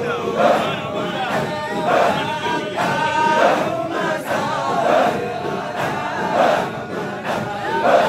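A large group of men chanting dhikr together in a rhythmic chorus, with a loud swell of voices about every one and a half seconds.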